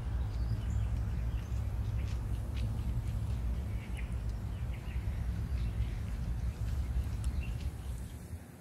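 Open-air ambience: scattered short bird chirps over a steady low rumble, fading out at the very end.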